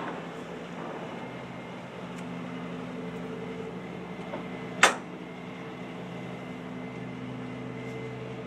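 John Deere 450J crawler dozer's diesel engine idling with a steady hum. A single sharp knock stands out about halfway through.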